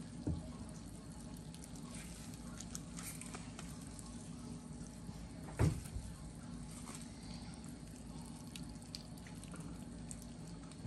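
Water squeezed from a mesh bag of wet, chopped bitter melon, dripping into a glass bowl in faint scattered drips over a low steady hum. A single knock comes a little over halfway through.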